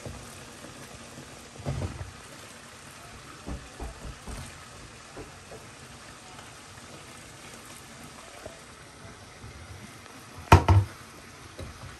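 Steady bubbling of a pot of liquid boiling on the stove, with a few knocks of kitchen utensils; the loudest is a double knock near the end.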